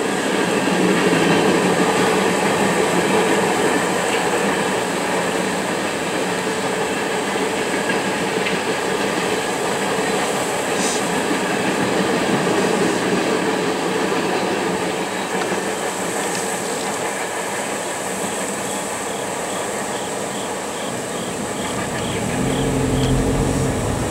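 Freight train of hopper cars rolling past at a grade crossing: a steady rumble and clatter of wheels on rail.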